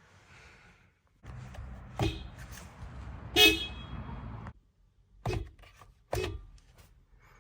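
Toyota RAV4 Prime's horn tapped in four short honks, with the vehicle switched off. The second honk is the loudest, and a steady low rumble runs under the first two.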